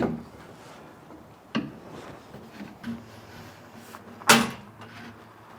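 A few short, sharp knocks and clunks, like parts or tools being handled; the loudest comes a little over four seconds in.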